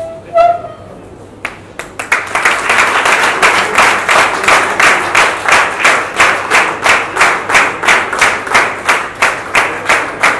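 Audience clapping in unison in a steady rhythm, about three claps a second, starting about two seconds in.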